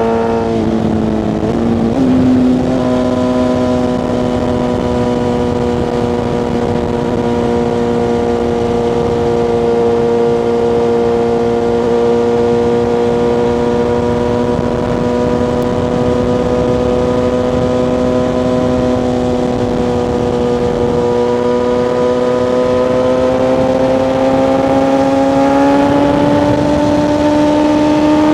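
BMW S1000RR's inline-four engine running under way at a steady pitch, over wind noise. About two seconds in the note dips briefly and then jumps higher, as on a gear change. It rises slowly near the end as the bike speeds up.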